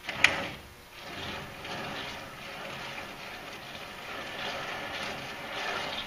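A sharp click about a quarter second in, then a few seconds of uneven rustling and scraping handling noise.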